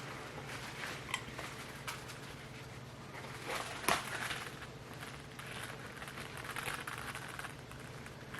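Faint handling noises, soft rustling and a few light clicks, as the replica wrestling belt is moved about, over a steady low electrical hum.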